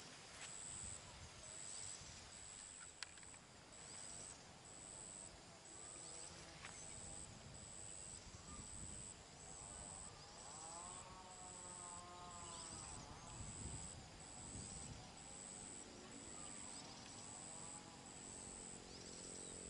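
Faint outdoor ambience. A high-pitched insect chirp repeats evenly about once a second, with a few short distant bird chirps and one drawn-out distant call near the middle.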